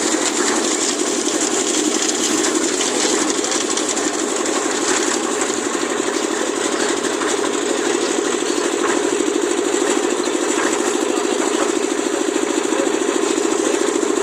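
Concrete mixer's engine running steadily, with a fast even throb.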